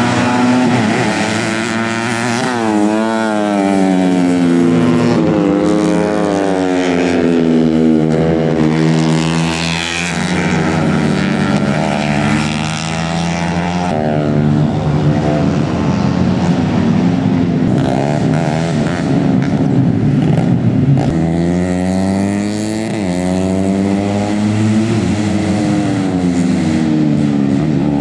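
Several single-cylinder four-stroke 130 cc underbone racing motorcycles at full race pace, their engine notes repeatedly rising through the revs and dropping with gear shifts and braking, overlapping one another.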